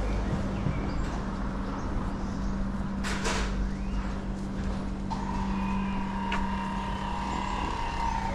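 City street traffic: a motor vehicle's engine running close by with a steady low hum, a brief hiss about three seconds in, and a steady high whine starting about five seconds in.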